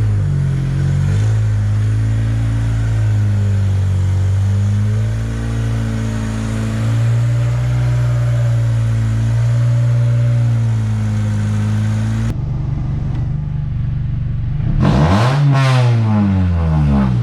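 Acura RSX engine running as the car is driven, its pitch rising and falling gently with the throttle. Near the end the engine revs up sharply and drops back down.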